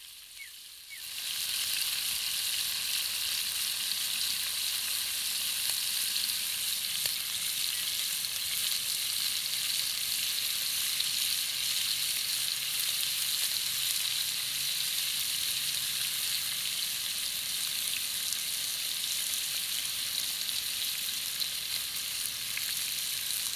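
Chunks of meat frying in hot sunflower oil in a frying pan: a steady sizzle that comes up about a second in and holds evenly, the meat being browned to a golden crust.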